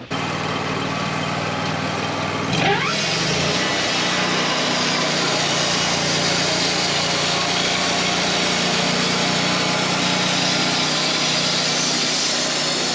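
Wood-Mizer LT40 Wide portable bandsaw mill running: its engine revs up about two and a half seconds in, then runs steadily.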